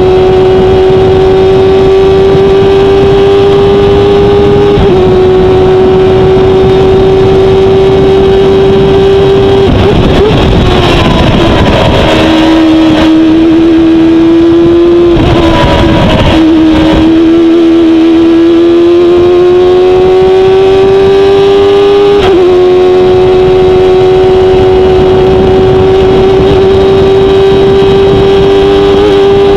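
Honda CBR1000RR inline-four motorcycle engine of a Formula 1000 open-wheel race car, heard on board at high revs at full throttle. The note steps briefly at about five seconds and again near the end of its climb, as it changes up a gear. Midway the note drops and breaks up while the car brakes and shifts down into a corner, then rises steadily as it accelerates out.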